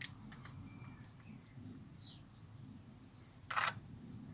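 Faint bird chirps in the background, with a click at the start and a short, louder scrape about three and a half seconds in.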